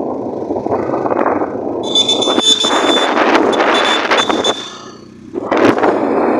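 Wind rushing over the microphone of a moving motor two-wheeler on the road, with the ride's road and engine noise underneath. A steady high tone sounds for about three seconds in the middle, and the rush drops away briefly about five seconds in before returning.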